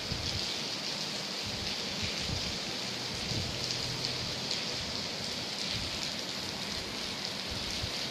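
Rain falling steadily, an even hiss that neither swells nor fades.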